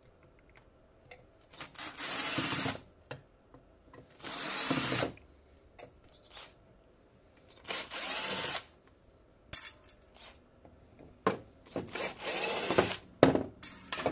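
Cordless drill-driver unscrewing small screws from a circuit board: four short runs of the motor, each under a second, with light clicks in between.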